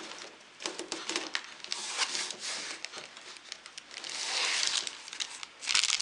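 Hands handling a cardboard box and its foam packing inserts: scattered light scrapes and taps, with a soft rustle about four seconds in. Near the end a clear plastic bag holding a cable starts crinkling loudly as it is lifted out.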